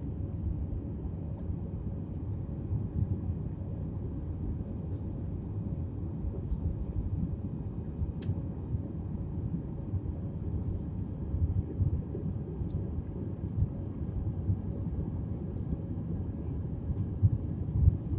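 Steady low rumble of jet engines and airflow heard inside the cabin of an IndiGo Airbus A320-family airliner climbing after takeoff.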